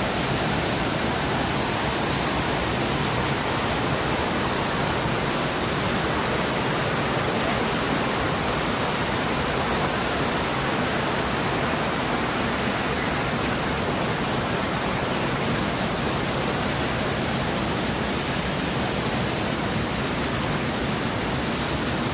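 Waterfall in spate after rain, its water rushing steadily and loudly, with no let-up.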